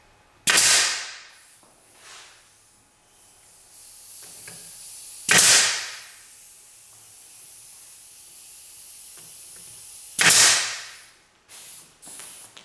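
Pneumatic pin nailer firing three times, about five seconds apart, each shot a sharp pop followed by a short hiss of exhaust air as it tacks a glued board in place. A fainter steady hiss runs between the second and third shots.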